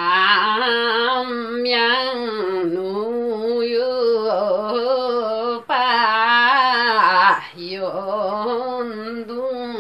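A woman singing a Limbu palam folk song unaccompanied, in long held notes with a wavering, ornamented pitch. The line breaks off briefly twice, about halfway through and again a couple of seconds later.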